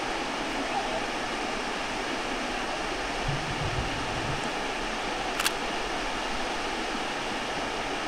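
Steady rush of a waterfall cascading over a rhyolite shut-in into a pool, with a brief low bump about three and a half seconds in and a single sharp click a couple of seconds later.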